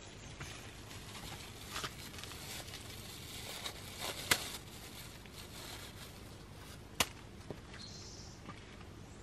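Quiet outdoor background noise with a few sharp clicks, the loudest about four and seven seconds in.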